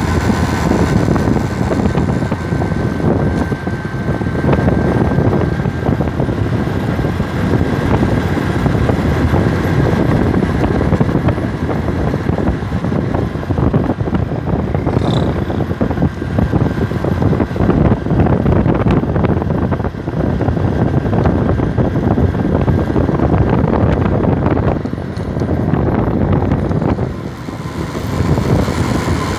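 Honda motorcycle engine running at cruising speed, with wind buffeting the microphone. The loudness dips briefly twice near the end.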